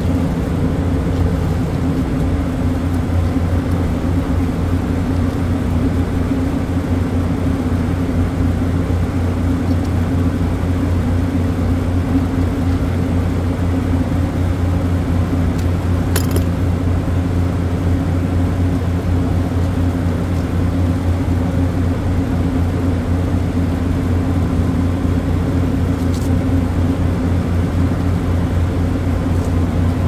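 Refrigeration compressor rack running: a loud, steady low machine hum, with a brief click about halfway through.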